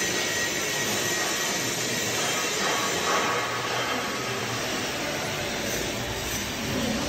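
Gas heating torch flame hissing steadily as it heats a steel beam's flange to straighten welding distortion. A low rumble comes in near the end.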